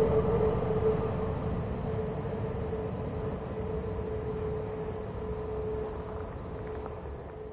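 Freight train rumbling away into the distance after passing the crossing, its sound fading steadily and cutting off near the end, with a steady high insect trill above it.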